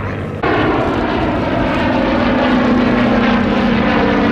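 Two Hawker biplanes' Rolls-Royce Kestrel V12 piston engines droning together overhead. About half a second in the sound jumps louder and settles into a steady, even engine note.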